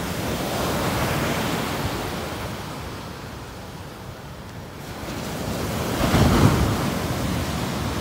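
Ocean surf breaking on a sandy beach: waves crash and wash up the shore, swelling about a second in and again, louder, around six seconds.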